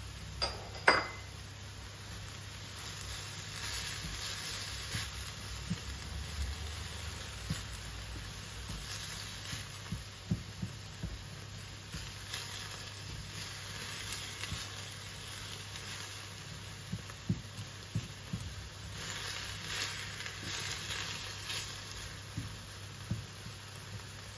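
Cherry tomatoes, garlic and onion frying beside ribeye steaks in a stainless-steel Saladmaster skillet, with a steady sizzle that swells and fades as a silicone spatula stirs them, scraping and tapping lightly against the pan. Two sharp clacks about a second in are the loudest sounds.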